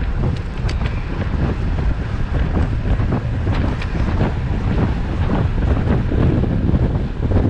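Wind buffeting the camera's microphone as a road bike descends at speed: a loud, steady low rush with small irregular gusts.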